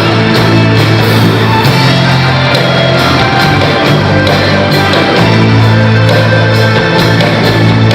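A live band playing loud rock music, with bass notes and a steady, evenly spaced drum beat.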